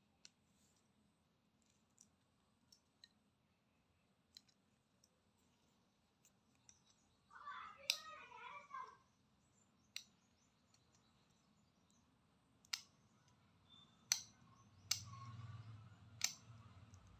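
Small clicks and taps of a plastic earbud charging case and its circuit board being handled, with a short crackly rustle about halfway through. Several sharper clicks come in the last few seconds as a metal hair clip is worked against the board.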